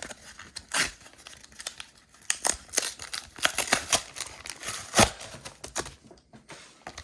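Plastic blister pack of Pokémon trading cards being opened: stiff plastic crackling, with a string of sharp snaps and clicks, the loudest about five seconds in.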